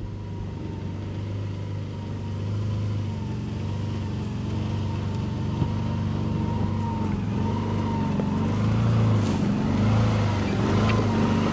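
Four-wheel-drive vehicle's engine running steadily at low revs while crawling along a rough track, the pitch lifting and dipping slightly and the sound growing a little louder in the second half.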